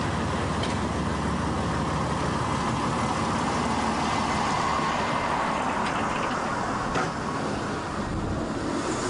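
DR/DB class 772 diesel railbus ("Ferkeltaxe") running as it moves off past the platform: a steady engine and running noise that eases slightly after a short knock about seven seconds in.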